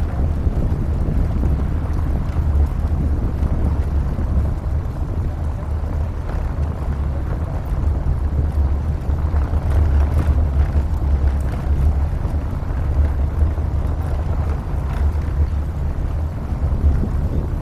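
Wind buffeting a roof-mounted camera's microphone over the steady low rumble of a pickup truck driving on a dirt road, with a few faint knocks from bumps.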